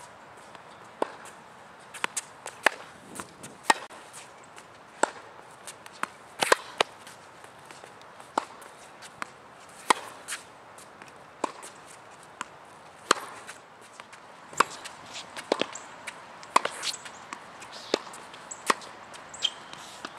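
Tennis balls struck with rackets and bouncing on a hard court during a groundstroke rally: a string of sharp pops, irregularly spaced about every half-second to second.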